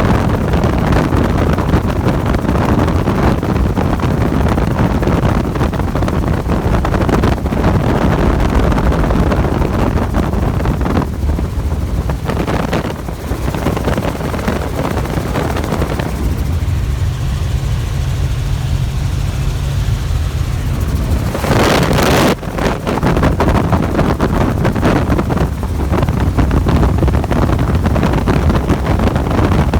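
Helicopter in flight: steady rotor and engine noise, with wind buffeting the microphone. The higher noise thins out for a few seconds past the middle, then a short, loud blast of wind noise comes about two-thirds of the way through.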